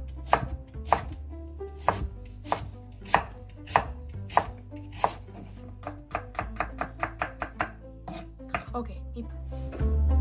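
Chef's knife chopping peeled yellow cucumber on a wooden cutting board: sharp knocks of the blade on the board, about one every half-second at first, then a quicker run of about four chops a second past the middle.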